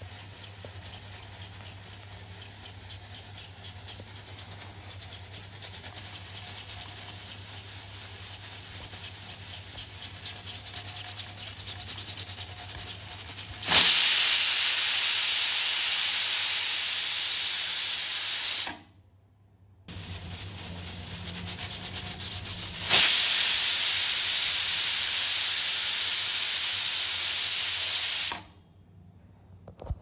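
Pressure cooker venting steam. A soft hiss grows slowly louder, then two loud bursts of hissing, each about five seconds long, start suddenly and cut off sharply.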